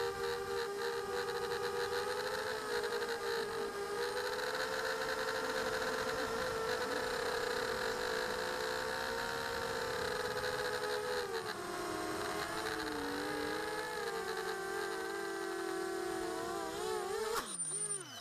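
Electric motors and propellers of a small FPV drone whining steadily, heard from its own onboard camera, the pitch shifting up and down with throttle. Near the end the whine wobbles, then dies away as the drone comes down in the grass.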